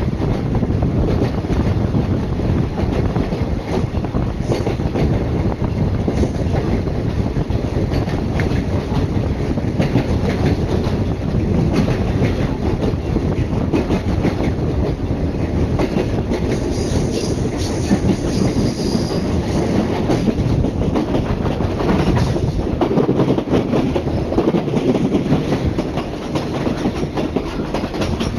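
Electric passenger train running on the JR Kagoshima Line, heard through an open carriage window: a steady rumble of wheels on rail and rushing air, with the clicks of rail joints. A brief high squeal of wheels on rail comes about two-thirds of the way through.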